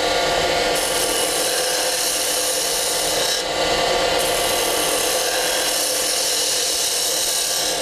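Spindle gouge cutting a spinning wooden spindle on a wood lathe: a steady shaving hiss from the cut over the lathe's steady running tones.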